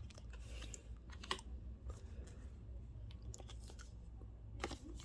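Trading cards being handled: light clicks, slides and rustles as cards are flicked through and set down, with a couple of sharper taps about a second in and near the end.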